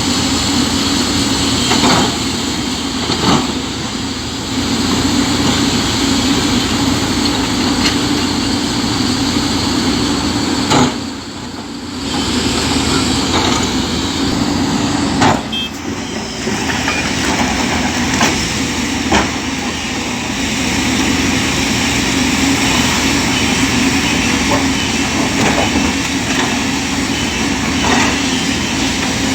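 Heavy diesel excavator engines running steadily under load, with occasional sharp knocks and clanks from the machines working against the boulder.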